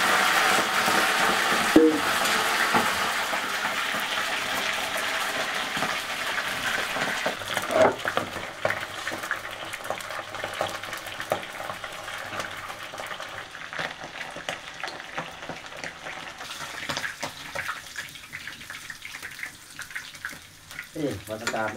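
Food sizzling in hot oil in a pan, loud at first and slowly dying down, with a few short knocks from stirring.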